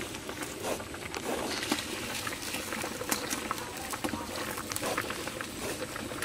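A large pot of rice and lentils boiling hard over a wood fire: a dense, steady bubbling with many small pops.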